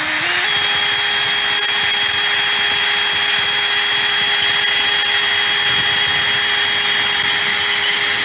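DeWalt cordless drill with a 3/16-inch bit running flat out, drilling out a pop rivet that holds a vacuum motor's bearing plate. It winds up in the first half second, then holds a steady whine.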